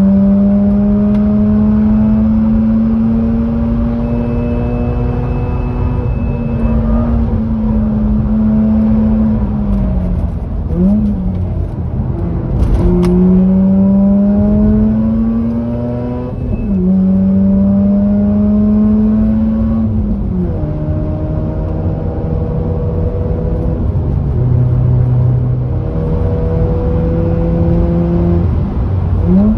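Mazda RX-8's two-rotor Wankel rotary engine, breathing through an aftermarket cat-back exhaust, pulling hard on track. The note climbs steadily and drops back at each gear change several times, with a couple of short rev blips.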